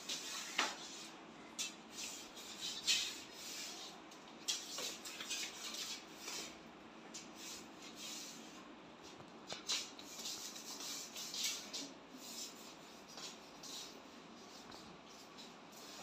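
Cloth rubbing along a dusty ceiling fan blade in short, irregular wiping strokes.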